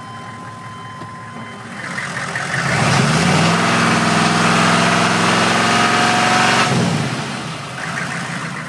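1995 Suburban's 6.5-litre turbo diesel V8 through a straight-pipe exhaust, heard from inside the cab: idling, then revved up about two seconds in, held high for several seconds, and let drop back to idle, with a short, smaller rev near the end.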